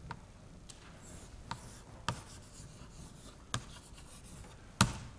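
Chalk writing on a chalkboard: faint scratching of the strokes, broken by several sharp taps as the chalk strikes the board, the loudest near the end.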